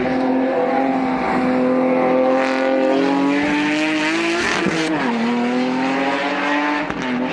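Porsche 911 rally car's flat-six engine running hard at high, steady revs, the note creeping up and then dropping sharply about five seconds in before holding steady again.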